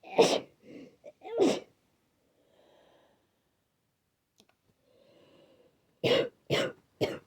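A person with a runny-nosed head cold sneezing: two sudden, wet sneezes in the first couple of seconds, a few faint hitching breaths, then three quick explosive bursts in a row near the end.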